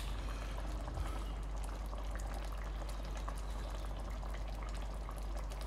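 Tomato-based curry sauce simmering in a large pan, a steady low bubbling with small scattered pops, over a constant low electrical hum.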